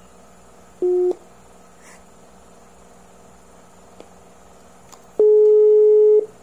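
Smartphone WhatsApp call tones: a short beep about a second in as the video call ends, then near the end a louder steady tone lasting about a second, the ringback of an outgoing call that has not yet been answered.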